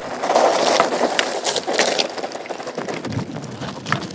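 Mountain bike rolling over a dirt trail: knobby tyres crunching on dirt and gravel with a run of rattling clicks, loudest in the first second and then fading away.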